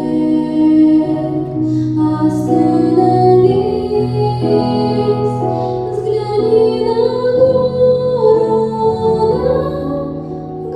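Music: a slow song with a woman's singing voice over sustained accompaniment.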